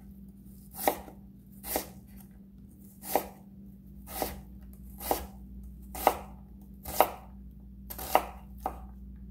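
Kitchen knife dicing a scored onion on a cutting board. About ten separate chops come roughly a second apart, each a sharp knock as the blade goes through and meets the board.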